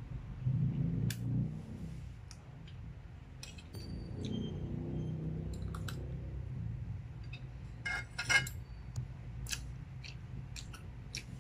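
Stainless fork and spoon clinking and scraping against a ceramic plate while twirling fettuccine, a scatter of sharp clinks with a brief ring, busiest around a third and three quarters of the way in.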